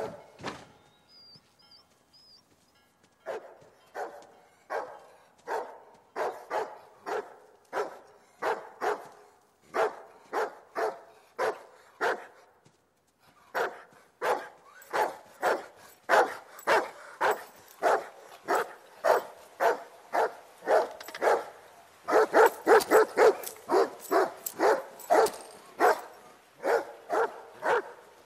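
A dog barking over and over. The barks begin about three seconds in, at roughly one or two a second, and grow louder and come in quicker runs in the second half.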